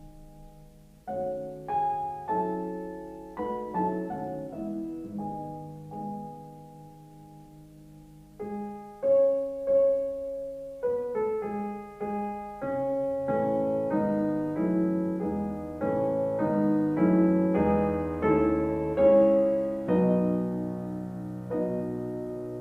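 Background piano music: struck notes and chords that ring out and decay, a gentle melody that grows fuller about halfway through.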